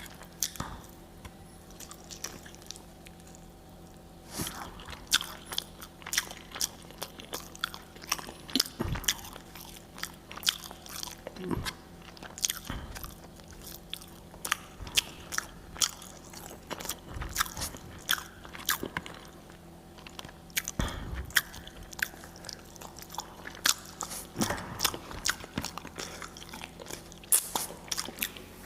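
Close-miked eating: bites, crunches and chewing in irregular bursts, many sharp mouth clicks, over a faint steady hum.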